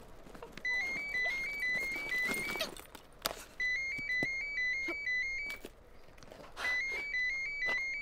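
Mobile phone ringtone: a quick electronic trill alternating between two high notes, ringing in three bursts of about two seconds each with short pauses between, with a few knocks and rustles in between.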